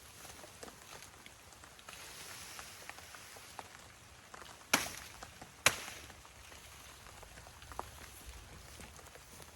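Light pattering and ticking over a steady hiss, with two sharp knocks about a second apart in the middle.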